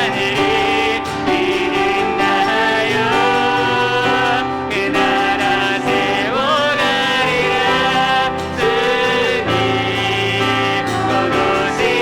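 Live worship music: vocalists singing a praise song over piano accompaniment.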